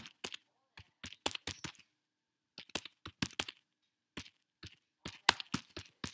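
Typing on a computer keyboard: short runs of quick keystroke clicks with brief pauses between them.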